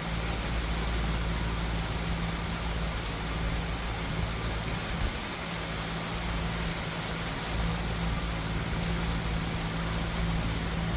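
Steady rainfall, an even hiss with no distinct drops standing out, over a constant low rumble.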